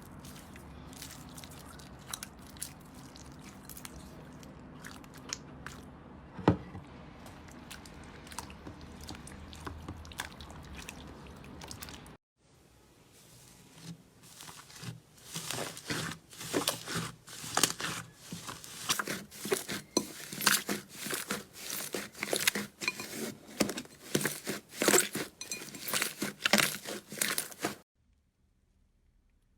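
Slime being squeezed and pressed by hand, making many sharp crackles and pops. The sound cuts out about twelve seconds in, resumes as a denser, louder run of crackling, and stops shortly before the end.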